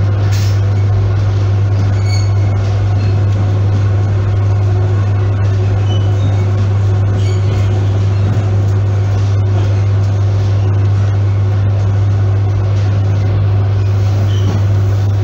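ER9p electric multiple unit heard from inside the carriage while running at speed: a loud, steady deep hum over the even rumble of wheels and running gear.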